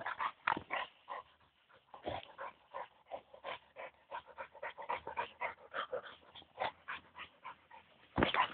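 Boxer dog panting hard in quick, breathy strokes, about three to four a second, with one louder burst near the end.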